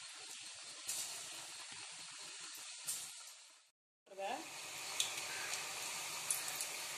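Pieces of rice-flour dough deep-frying in hot oil in an aluminium kadai over a low flame: a steady sizzle with a few sharp crackles. The sound drops out for a moment a little past halfway, then resumes a little louder.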